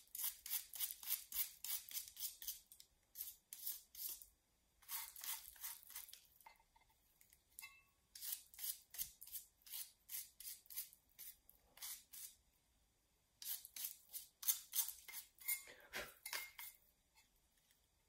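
A small stiff brush scraping loose plaster and residue out of the breaks in a sculpture, in runs of quick scratching strokes, about four or five a second, with short pauses between runs.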